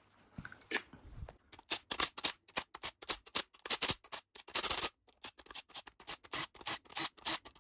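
Ratchet wrench clicking in quick runs as the bolts holding the rocker shaft on a Land Rover Td5 cylinder head are undone.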